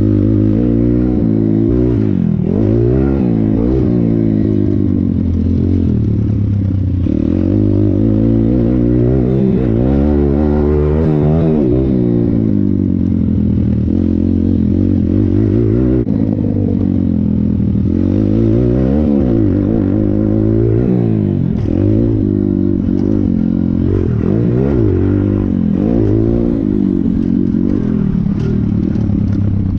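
Thumpstar pit bike's single-cylinder four-stroke engine, heard from on board, revving hard and backing off over and over as the throttle is worked through the corners and straights. Its pitch climbs and drops every couple of seconds.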